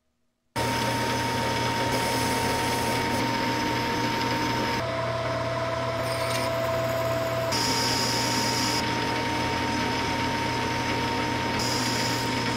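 A power tool runs steadily, as used in cleaning rust off an antique adjustable wrench. Its steady whine drops in pitch for a few seconds in the middle, as under heavier load. It starts abruptly and cuts off just at the end.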